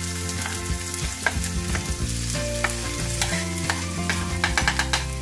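Chopped onion sizzling as it drops into hot oil in a frying pan, with sharp clicks and taps from the knife pushing the onion off a wooden chopping board.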